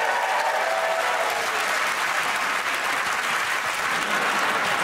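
Studio audience applauding steadily, with a few cheers and whoops in the first second.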